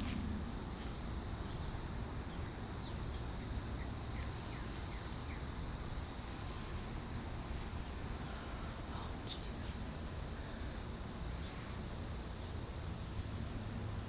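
A chorus of cicadas, a steady high-pitched buzz that holds without a break.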